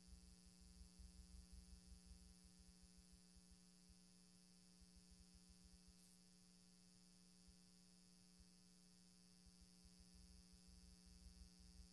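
Near silence: a faint steady electrical hum in the sound system, with a low flickering rumble in the first couple of seconds and again near the end.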